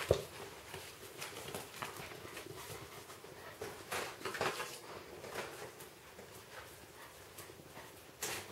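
A husky puppy and a ferret scrabbling on a tile floor: scattered light clicks and taps of claws, with a couple of louder knocks about four seconds in and a sharp one near the end.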